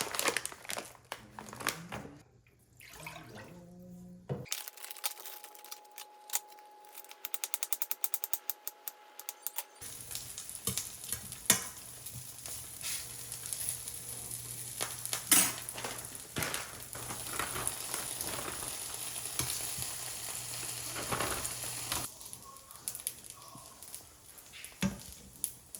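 Pork belly sizzling and frying in a pan, a steady hiss through the middle of the stretch with scattered pops and clicks.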